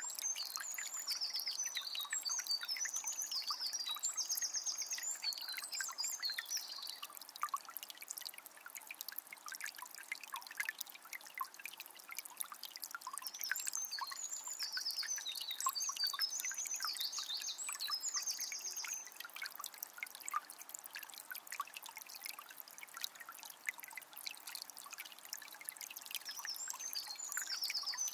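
Forest river flowing with a steady trickling and babbling. A songbird sings long runs of high, quick notes three times: at the start, around the middle, and near the end.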